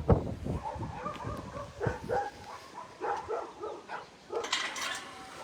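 Dogs making short soft whines and yips, amid scattered knocks and rustling, with a brief burst of rustling near the end.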